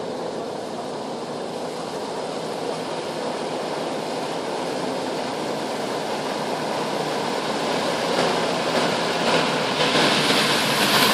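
Jeep Wrangler YJ running in low gear through deep mud ruts and puddles, its tyres churning and splashing through muddy water. It gets steadily louder as it approaches, most of all near the end.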